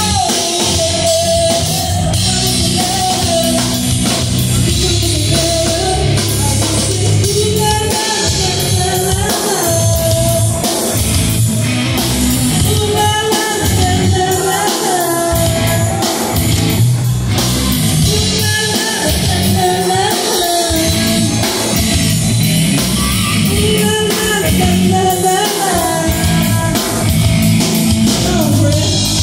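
Live rock band playing: a woman sings into a microphone over electric guitar, bass guitar and drum kit.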